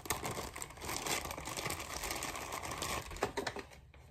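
Packaging rustling and crinkling with many small clicks as a weighted sleep mask is unwrapped by hand, easing off near the end with a few last crackles.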